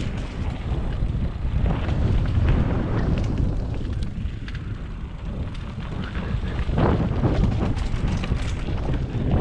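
Mountain bike riding fast down a dirt trail: wind rushing over the microphone and a low rumble from the tyres on the ground, with scattered clicks and knocks as it goes over bumps.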